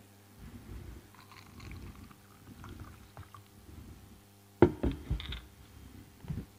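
Handling noise: soft rustling and low rumble, then a few sharp knocks starting about four and a half seconds in.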